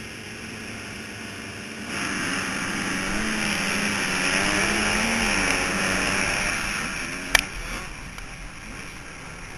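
Motocross bike engine under throttle, heard with a constant rush of wind on a helmet-mounted camera: the engine gets louder about two seconds in, its pitch wavering up and down, then eases off around six seconds. A single sharp knock about seven seconds in.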